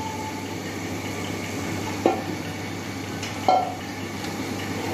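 A metal ladle knocks twice against a steel cooking pot while masala is spooned over rice and fish, two sharp knocks about a second and a half apart, the second ringing briefly.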